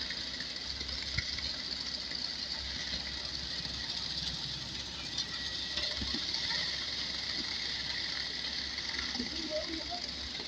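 Concrete mixer machine's engine running steadily, a continuous mechanical drone with a hissing edge.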